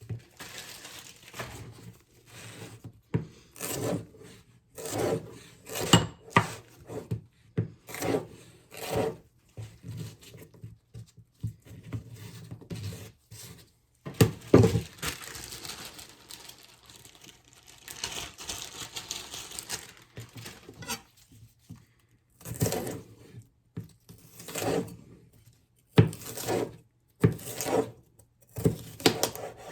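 Kitchen prep handling sounds: irregular knocks and clacks of utensils and food on a counter or cutting board, with some scraping and rubbing in between.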